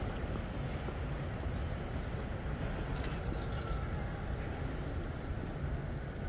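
Steady city street ambience: a low rumble and hiss of urban traffic, with no single event standing out.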